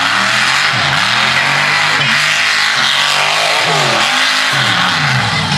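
Mud truck's big engine revving hard under throttle, its pitch dropping and climbing again several times as the tires spin in the dirt, over a steady hiss of spinning tires and thrown dirt.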